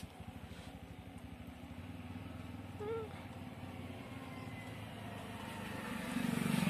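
Steady low mechanical hum with a rapid even pulsing, growing louder near the end, with one short high chirp about three seconds in.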